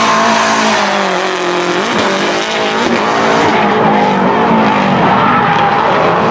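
Nissan Silvia drift cars sliding sideways, their engines revving up and down in quick sweeps over the noise of skidding, squealing tyres.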